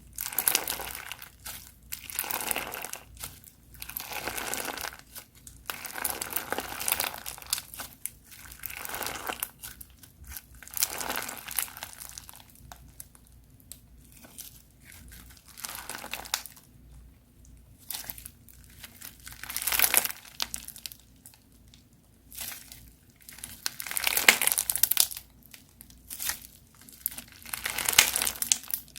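Crunchy slime being squeezed and pressed by hand, giving bursts of crackling and crinkling, some of them long, separated by short pauses.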